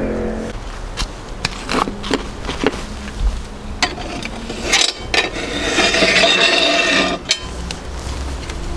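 Wood fire crackling and knocking in a wood-fired pizza oven, with sharp clicks of metal on cast iron. About five seconds in, a cast iron skillet is dragged out across the oven floor, scraping for a couple of seconds.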